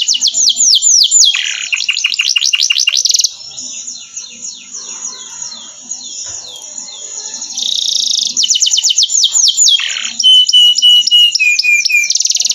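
Domestic canary singing: loud, rapid trills of quick down-sweeping notes, a softer twittering passage in the middle, then fast trills again and a long whistled note held for about two seconds near the end, dropping in steps.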